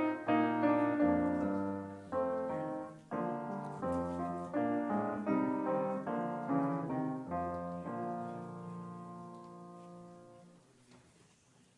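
Piano music: a series of struck chords and notes, ending on a held chord that rings out and fades away near the end.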